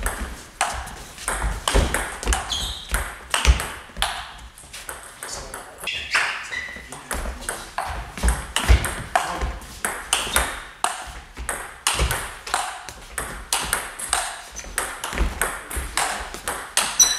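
A table tennis rally: the ball clicks off the bats and bounces on the table in a quick, even run, about two to three hits a second.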